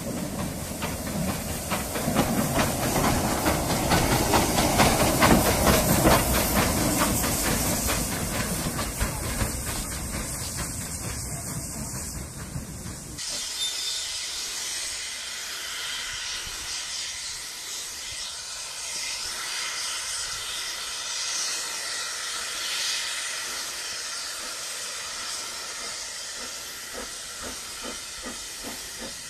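Hunslet saddle tank steam locomotive working along the line, its exhaust and motion loudest about five seconds in as it passes close. About thirteen seconds in the sound cuts abruptly to a steady hiss.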